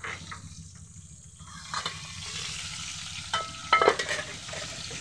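Chicken frying in a pan of hot oil, a steady sizzle that grows stronger about two seconds in. A few sharp metallic clinks come about three to four seconds in, the loudest ringing briefly.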